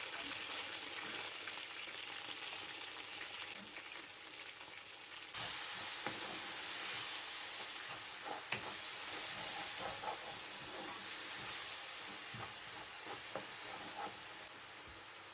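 Food sizzling in hot oil in a pan while a utensil stirs it, with small scrapes and clicks. The sizzle gets suddenly louder about five seconds in.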